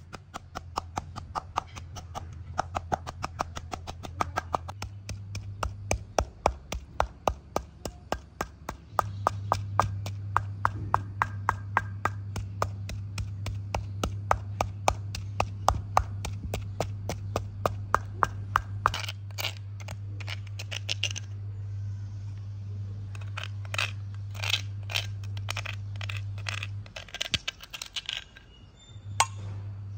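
Wooden pestle pounding mint leaves in a stone mortar: a long, even run of sharp strikes. In the last third the strikes give way to a metal spoon scraping and clicking the pounded mint out of the stone bowl. A low steady hum runs underneath.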